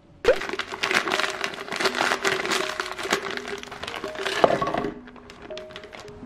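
A spoon crunching and scraping through frozen blueberry ice cream with dense crackling, then frozen banana chunks clattering into a plastic blender jar, the loudest knock about four seconds in, fading to a few light clicks. Soft guitar background music plays underneath.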